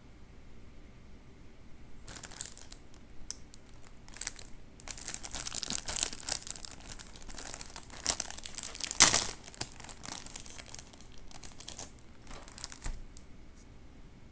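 Crinkling and crackling of a plastic Oreo cookie packet handled by gloved hands. It starts about two seconds in, comes in uneven bursts, and is loudest about nine seconds in.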